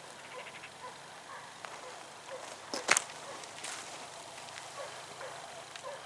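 Hunting hounds barking and baying in the distance, many short irregular calls, with one short sharp crack about halfway through.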